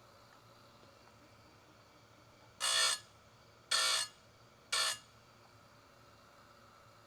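Oregon 410-120 electric chain sharpener's grinding wheel touching a chain cutter three times in quick succession, each a short, loud grind lasting under half a second, about a second apart.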